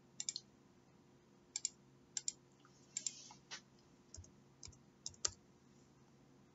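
Faint, irregular keystrokes and clicks on a computer keyboard and mouse, about a dozen short taps spread unevenly, while a filter value is typed into a spreadsheet.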